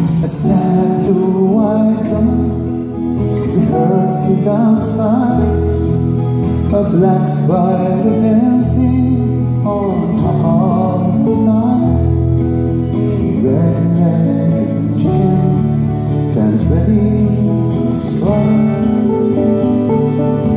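A man singing a folk song live, accompanying himself on acoustic guitar, heard from the audience in a concert hall.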